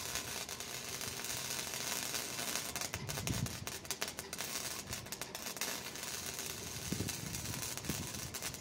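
Wire-feed welder arc crackling and sizzling steadily as a bead is run along a steel channel, cutting off abruptly at the very end when the trigger is released.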